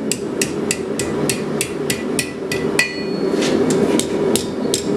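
Forging hammer striking hot flat steel stock on an anvil in a steady rhythm, about three blows a second, as the end is drawn out for a hook. One blow near the middle rings out briefly.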